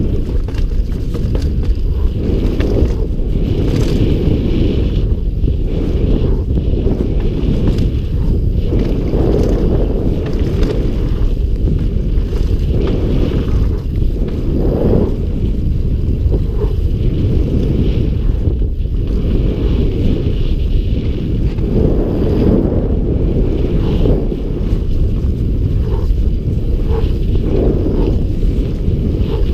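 Loud, steady wind rumble on an action camera's microphone as a Specialized Enduro mountain bike rides fast down a dirt trail, with the tyres running over dirt and the bike rattling underneath.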